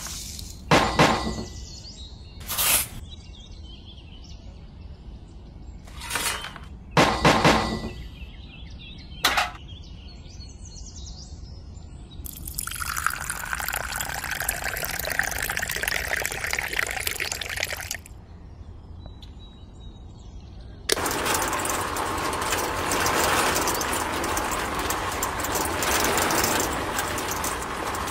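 Several short scrapes and clatters as sand and cement are spooned into a miniature concrete mixer's drum. Then water is poured in for about six seconds. About 21 seconds in, the mixer's small electric motor starts abruptly and runs steadily, turning the drum.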